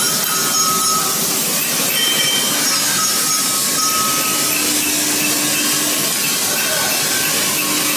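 Steady hissing workshop machine noise, with a few short, faint metallic rings from tools working brass.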